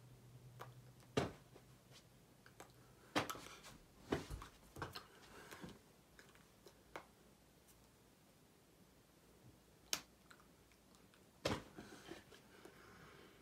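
Hands slapping, clapping and brushing together while signing: scattered sharp slaps and clicks, the loudest about a second in, around three and four seconds, near ten seconds and eleven and a half seconds, some trailed by soft rustling. A low hum fades out about three seconds in.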